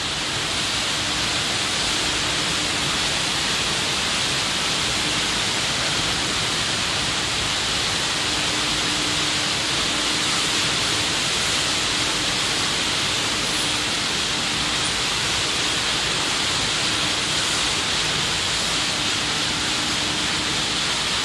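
Rows of rolling drums (tumbling barrels) for polishing acetate eyeglass frames running together: a steady, even rushing noise, with a faint motor hum coming and going.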